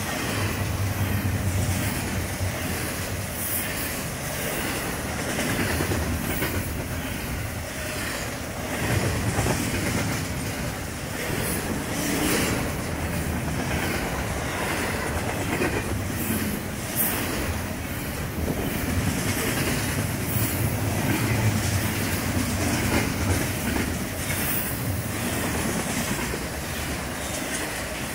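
BNSF double-stack intermodal freight train rolling past: steady wheel-and-rail rumble with repeated clickety-clack as the car wheels pass over the rails.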